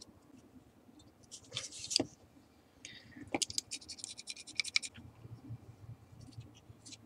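Utility knife blade scraping the glass of a multimeter's LCD panel. A rasp comes about one and a half seconds in, then a quick run of short scratchy strokes, with small clicks as the glass is handled.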